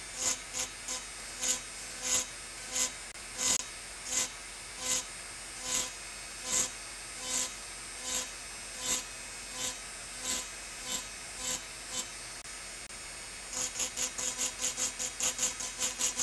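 Handheld engraving drill grinding into an optical crystal glass block in short, regular rasping strokes over the drill's steady hiss: about one stroke a second at first, quickening to four or five a second near the end.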